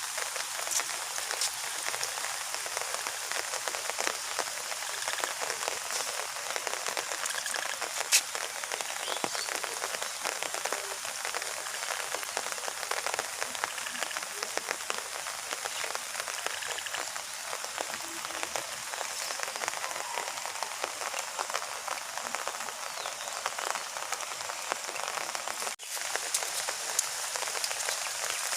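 Heavy rain falling steadily: a dense, even patter of many drops, with one sharper drop strike about eight seconds in and a momentary break near the end.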